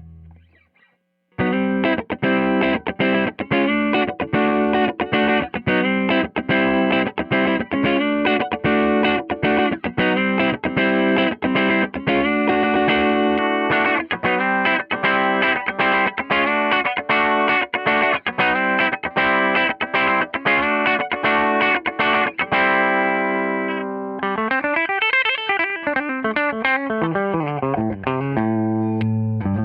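Gibson '58 Historic Les Paul electric guitar through a Tone King Imperial MK 2 amp on a clean tone pushed slightly hot. After a brief pause it strums chords in a steady rhythm of about two to three a second. Near the end a chord is left to ring, then notes glide up and down in pitch.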